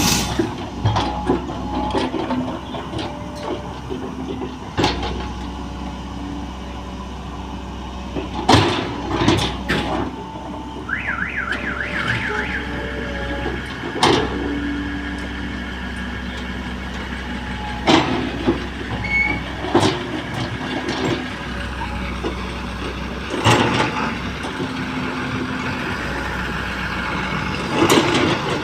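Excavator's diesel engine running steadily as it loads gravel sub-base material, with the bucket clanking and knocking every few seconds. A brief warbling tone sounds about eleven seconds in.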